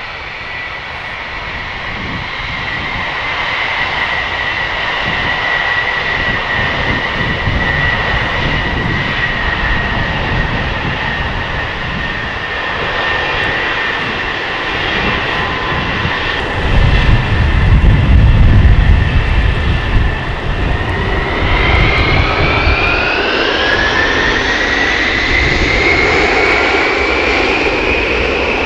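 Boeing 707 jet engines running with a steady high whine that sags slightly in pitch. About two-thirds of the way in, the whine climbs steadily as the engines spool up toward takeoff power. A deep rumble surges loudest for a few seconds just before the climb.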